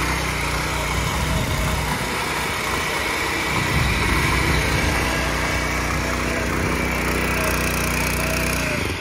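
SP-1100 walk-behind power tiller's 7.5 HP engine running steadily under load while its rotary tines churn dry soil, with a dense gritty noise from the blades over the engine note.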